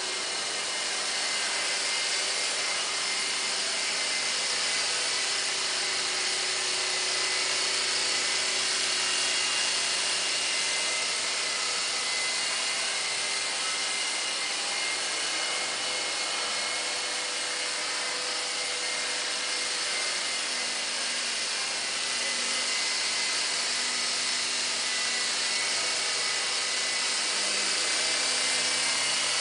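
Nine Eagles four-channel electric coaxial RC helicopter in flight: its small electric motors and twin rotors whir steadily with a high whine that shifts slightly in pitch.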